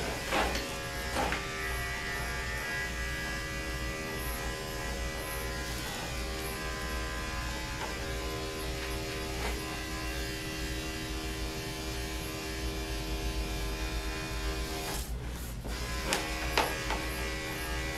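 Andis electric dog clipper with a #7 blade running steadily as it trims the coat, a constant motor buzz. The buzz briefly dips about fifteen seconds in, and a few light clicks of handling come near the start and near the end.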